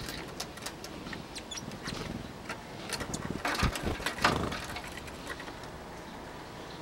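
Tits, a great tit among them, at a wooden bird feeder: irregular light taps and clicks of beaks and feet on the wood, with a brief flurry of wing noise and knocks about halfway through as birds come and go, over a steady low rumble.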